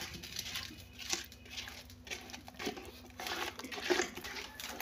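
Hand stirring and kneading thick ncha, a palm-oil sauce, in a clay pot: irregular wet squishing strokes.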